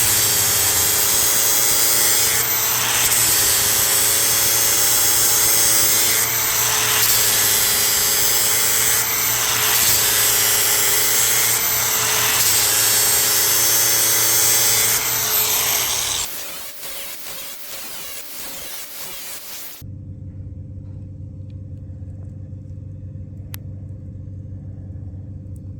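Cordless angle grinder with a 36-grit Walter Xtracut XX ceramic sanding disc grinding down welds on metal end caps, in repeated passes that swell and ease every two to three seconds. About 16 seconds in the grinding stops, leaving a much quieter, steady low hum.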